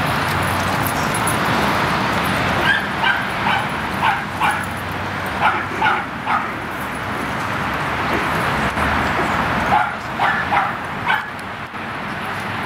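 Dogs at play yipping in quick runs of short, high yelps, one cluster about three seconds in and another near ten seconds, over a steady background hiss.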